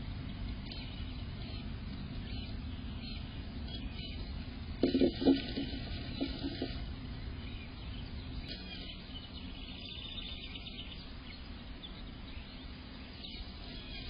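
Tree swallow moving about inside a wooden nest box, rustling the dry-grass nest, with a cluster of bumps about five seconds in and faint high chirps a few seconds later, over a steady low hiss.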